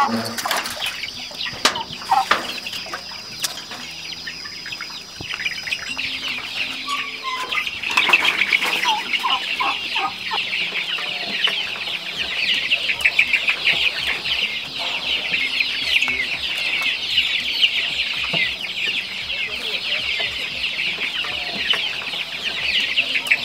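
A flock of young laying-hen pullets cheeping and peeping, a dense chorus of overlapping high chirps that starts about six seconds in and keeps going. Before it a steady high insect trill is heard, with a few clicks and knocks as a wooden door's latch is worked.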